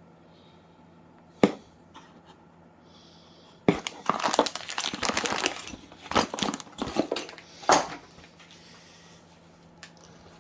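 Packaging being handled: rustling and crinkling with clatters. There is a sharp knock about a second and a half in, then a dense run of crinkles and clicks from about four to eight seconds.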